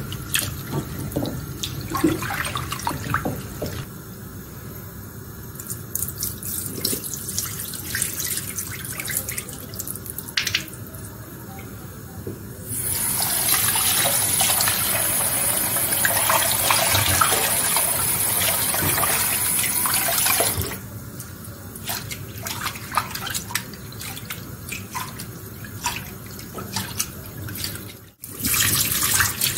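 A sink tap runs in a steady stream for about eight seconds in the middle. Before and after it come scattered clinks and knocks of dishes and utensils being handled at the sink.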